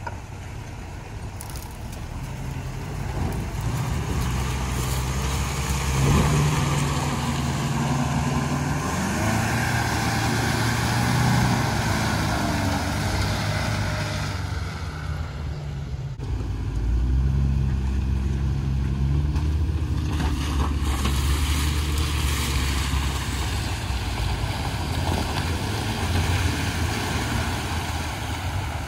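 Off-road vehicle engines running as they crawl over dirt tracks and through mud, the pitch shifting with the throttle. An old compact pickup truck comes first, then after a break about halfway through a Jeep Wrangler, whose engine sounds louder and deeper.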